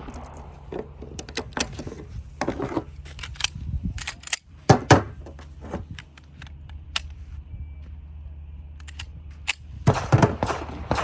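A run of clicks and knocks of handling, with two loud, sharp bangs close together about five seconds in, over a steady low hum.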